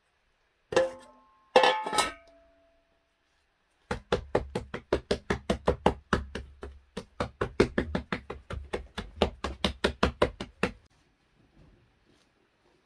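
Metal bowls clank together twice, ringing briefly. Then a hand slaps floured bread dough in a large steel bowl in a quick, even rhythm, about five slaps a second for some seven seconds.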